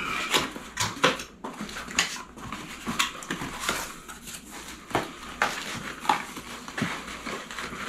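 A small cardboard box being opened and unpacked by hand: irregular rustles, scrapes and light clicks of cardboard and paper packing.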